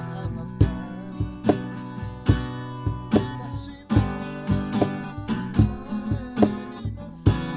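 Acoustic guitar strummed in a steady rhythm, with sharp accented strokes every half second or so over sustained chords.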